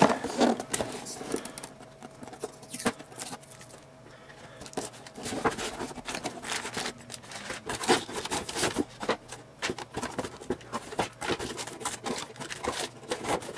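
Motherboard's cardboard box being opened and handled: scattered rustles, scrapes and light knocks of cardboard and packaging.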